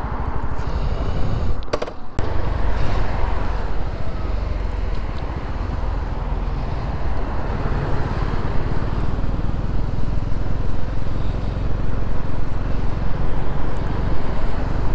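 Honda CB125R's small single-cylinder engine running on the move, with wind rush over the helmet-mounted microphone. There is a short break about two seconds in.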